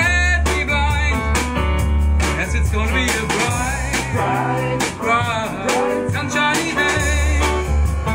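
Band playing a blues-flavoured song: a sung vocal over guitar, bass and drum kit keeping a steady beat. The deep bass line drops out for a few seconds in the middle and comes back near the end.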